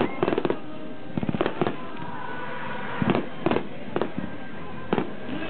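Aerial firework shells bursting in a display: sharp bangs every half-second to a second, with quick clusters of several near the start and about a second in.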